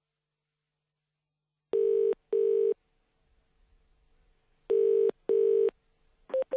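Australian telephone ringback tone heard down the phone line: two double rings, each a pair of short buzzing tones, about three seconds apart, while the call waits to be answered. A click near the end.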